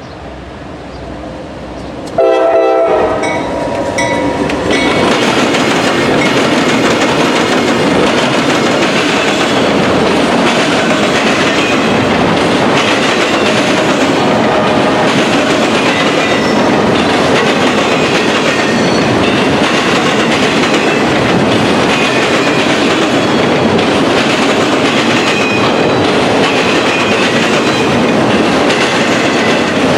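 A freight train led by two GE ES40DC locomotives sounding its horn about two seconds in, then the train rolling past loud and steady, its wheels clattering over the railroad diamond.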